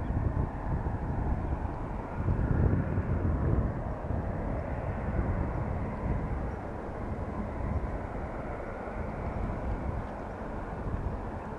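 Boeing 737-800's CFM56-7B jet engines, a steady low rumble heard from the ground, swelling louder about two seconds in and easing off after.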